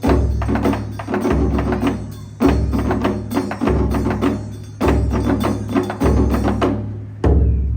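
Taiko ensemble drumming on nagado-daiko. Deep, heavy drum strokes fall about once every 1.2 seconds over a fast run of sharp, lighter strikes.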